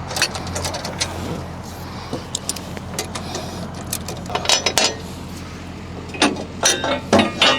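Metal clicks and clanks as an access cover on a mini excavator is opened and handled, with a steady low hum behind; the clanks come in two clusters, a little past halfway and near the end.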